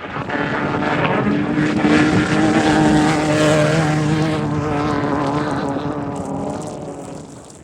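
Off-road race vehicle's engine passing by at steady revs. It grows louder to a peak about two to three seconds in, then fades into the distance.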